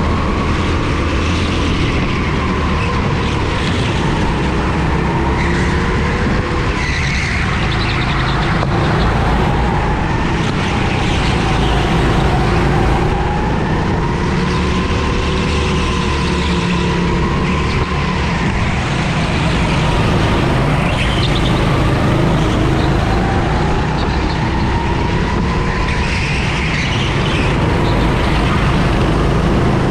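Go-kart engine heard on board during a race, running hard throughout. Its pitch climbs and drops several times over the stretch, the engine revving up through a gear-less acceleration and falling back as it slows.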